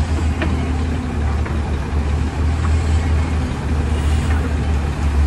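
Heavy diesel engines running with a steady deep drone, as an excavator works loading soil into a dump truck.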